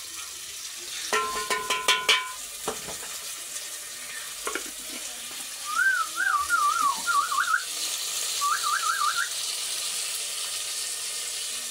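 Chopped tomatoes frying in an aluminium pot on a gas stove, a steady sizzle, with a quick run of ringing metal clinks about a second in and a couple of single knocks. Two short warbling whistles come through near the middle.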